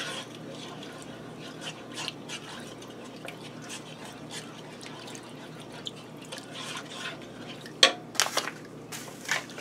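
Wooden spoon stirring broth and soup in a Ninja multi-cooker pot: wet sloshing with small scrapes and clicks. Near the end come a few sharper knocks, the loudest about eight seconds in, as the spoon is set down on the pot's rim.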